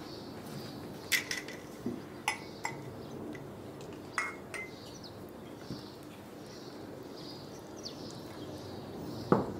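Scattered light clinks of a utensil and glassware against a stainless steel mixing bowl as flour, eggs and liquid are mixed for bread dough, with a duller knock near the end.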